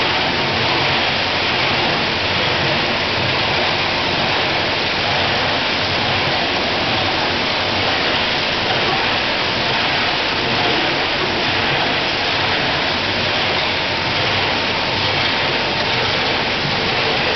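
Steady rushing and churning of water as a slurry of water and crushed shellfish pours into a cyclone separator tank.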